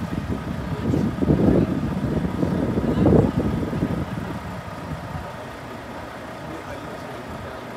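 Low engine rumble that is loud for about the first three seconds, then dies away, leaving a steady, quieter hum.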